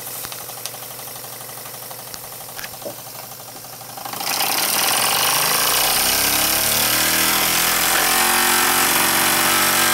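Jensen 5 toy steam engine running slowly with a faint, regular mechanical ticking; about four seconds in, the steam valve is opened and it turns into a much louder, fast steam chuffing and hiss whose pitch rises as the engine speeds up.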